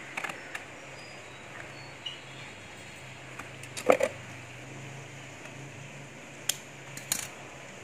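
A few short clicks and taps from hands handling a small orchid cutting and a razor blade on brick tiles, the loudest about four seconds in, over a faint steady low hum.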